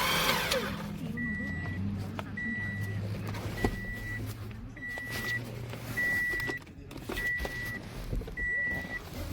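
A short, high electronic beep repeating about once a second over a steady low motor hum, with a sharp click and a brief burst of noise at the start.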